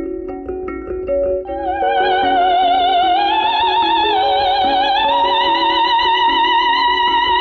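Background music: a repeating pattern of short mallet-like notes, joined about a second and a half in by a high, wavering melody line with strong vibrato that steps up in pitch twice.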